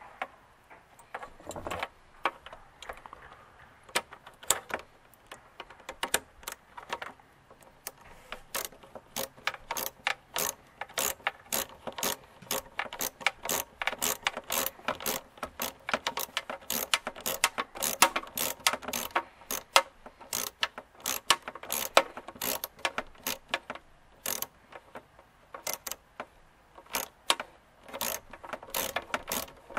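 Ratchet clicking in quick runs of strokes with short pauses, driving a socket on an extension to tighten the worm-gear hose clamp on a K&N cone air filter.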